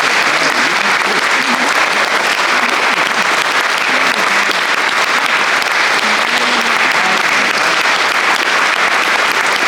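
Concert audience applauding steadily, with faint voices under the clapping.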